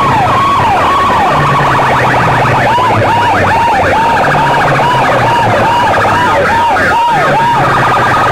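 Siren-style wail played very loud through stacks of horn loudspeakers: a fast rising-and-falling whoop, about two cycles a second, over a low droning bass tone that comes and goes.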